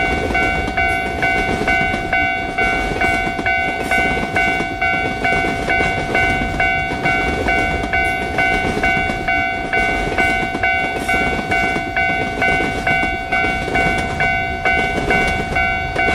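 Japanese level-crossing warning bell ringing its steady "kan-kan" clang, repeating about twice a second, over the rumbling clatter of a passing train.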